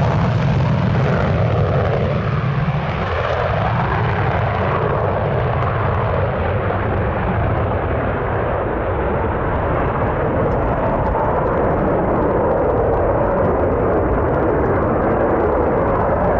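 F/A-18 Hornet's twin General Electric F404 turbofans at full afterburner on the takeoff roll and climb-out: loud, steady jet noise that loses its high end as the fighter pulls away, with a crackle through the second half.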